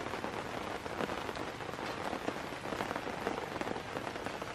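Rain pattering steadily, a dense even hiss of small drops.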